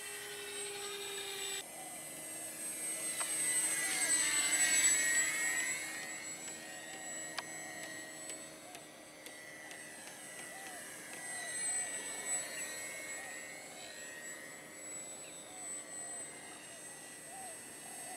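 Small RC electric motor glider's 2212 2200kv brushless motor and propeller whining steadily in flight. It swells as the plane passes close about four to five seconds in, and again more faintly around twelve seconds.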